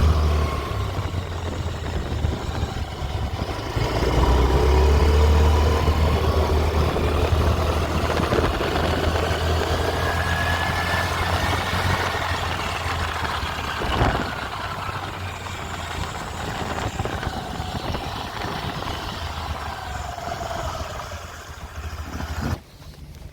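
Motorcycle engine running with a steady low hum, carrying an abnormal metallic rubbing noise from the transmission gears as a faint whine that rises and then falls in pitch. A single sharp click comes about two-thirds of the way through, and the sound cuts off suddenly just before the end.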